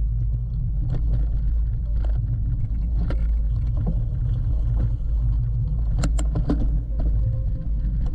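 Mountain bike ridden over a bumpy trail, heard from its GoPro: a steady low rumble of wind and tyres on the mic, with scattered sharp clicks and knocks as the bike and camera rattle over bumps.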